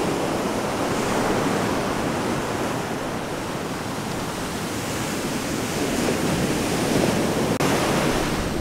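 Ocean surf breaking and washing on the beach, a steady rushing noise, with some wind on the microphone.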